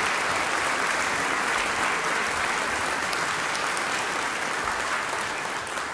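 Audience applauding steadily at the end of a choral performance, the applause slowly dying down near the end.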